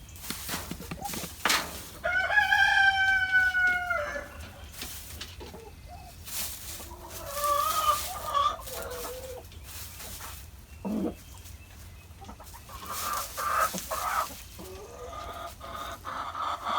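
Backyard chickens calling: one long drawn-out call about two seconds in, held for about two seconds, then softer, shorter clucking, with scattered light knocks.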